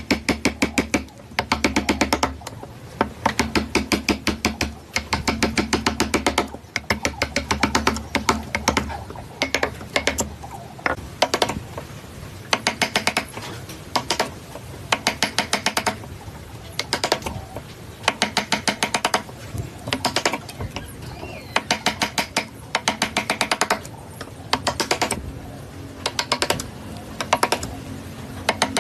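Repeated bursts of rapid mechanical clicking, each lasting a second or two, over background music.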